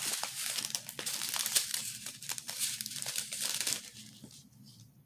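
Small plastic zip bags of diamond-painting crystal drills crinkling and crackling as they are picked up and handled. The crinkling dies away about four seconds in.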